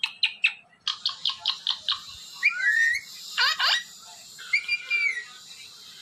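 Parakeet calls: a quick run of short falling whistles about a second in, then squawking glides and a held whistle.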